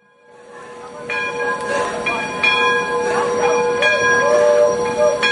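Steam locomotive's bell ringing as the engine pulls out, struck about once a second and sometimes twice in quick succession, over a steady tone. The sound fades in over the first second.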